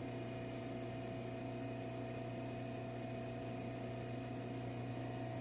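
Steady, unchanging hum of a running micro-hydro plant: the turbine-driven generator and its electrical gear giving a constant low tone with a fainter higher tone above it.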